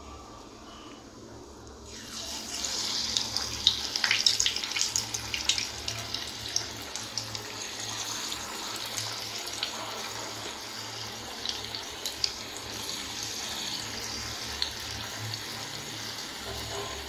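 Small balls of spinach and urad dal pakoda batter dropped into hot oil, sizzling and crackling as they deep-fry. The sizzle starts suddenly about two seconds in, crackles hardest for the next few seconds, then settles into a steady sizzle with scattered pops.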